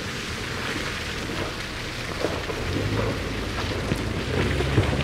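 Mini Cooper S Countryman ALL4 driving through a muddy forest track: its tyres churn and spatter through mud and leaf litter as a steady rushing noise with scattered crackles. The turbocharged four-cylinder engine's hum comes in about three seconds in and grows louder near the end.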